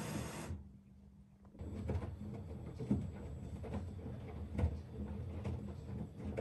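Electrolux top-loading washing machine early in its wash: a steady hiss of water cuts off sharply about half a second in, and after a second of faint hum the drum starts turning. Wet laundry sloshes and thuds with irregular soft knocks.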